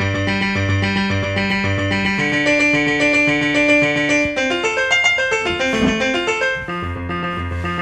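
GarageBand Smart Piano playing chords through its arpeggiator: a quick, steady run of piano notes over a repeating bass note, the chord changing a few times.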